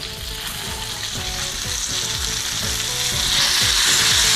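A murrel (snakehead) fish frying in hot coconut oil in a pan, the oil sizzling steadily and growing louder about three seconds in.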